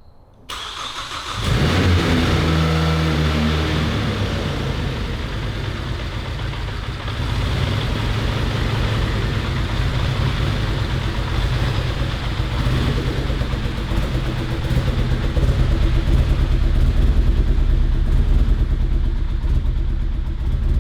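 Freshly rebuilt Ford Focus ST turbocharged EcoBoost four-cylinder stroker engine cranking briefly and catching about a second and a half in, then running at idle on its first runs after the rebuild, getting somewhat louder later on.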